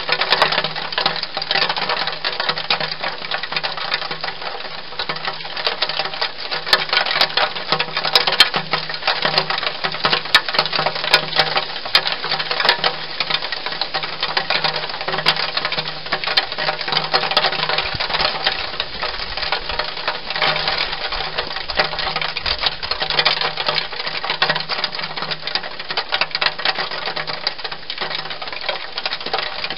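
Wild hedgehog eating from a bowl inside a plastic feeding box, chewing and smacking with a continuous rapid run of crunchy clicks.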